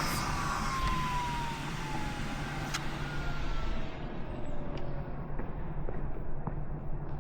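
A vehicle passing and moving away: a loud hiss cuts off at the start, then a thin whine falls slowly in pitch as the sound fades. A steady low hum and a few faint ticks sit underneath.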